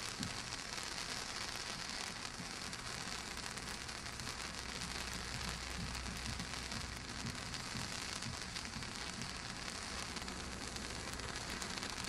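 Brothers Pyrotechnics Krazy Klock display fountain burning: a steady hiss of spraying sparks, dotted with many small crackles.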